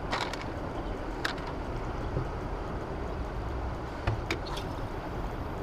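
Steady rushing noise of wind and churning water below a dam's open spillway gates, with a few short sharp knocks, the loudest about four seconds in.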